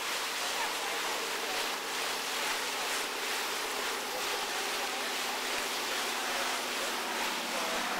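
Steady rush of wind and water with a steady low engine hum underneath, as from a motorboat under way on a lake.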